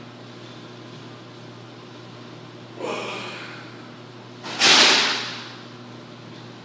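A person doing a foam-roller rotation stretch on a hardwood floor: two swishing noises, the second much louder and fading over about a second, over a steady low room hum.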